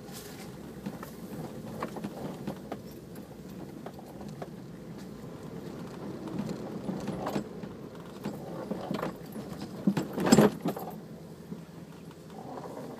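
Off-road 4x4 driving over rough ground: a steady low engine sound with frequent rattles and knocks, and one loud thump about ten seconds in.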